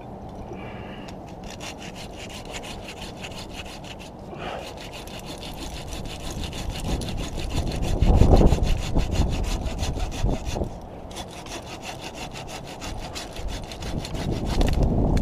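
Pruning handsaw cutting through a conifer branch, rapid, steady back-and-forth strokes, with a heavy thump about eight seconds in.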